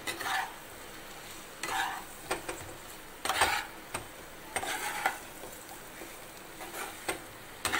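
Chicken pieces being stirred into a spiced onion-tomato masala in a hot pan: several separate scraping stirring strokes over a steady frying sizzle.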